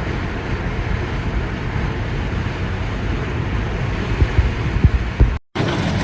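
Storm wind buffeting a phone microphone: a steady rushing noise with several low thumps from gusts. It cuts out for an instant near the end and resumes.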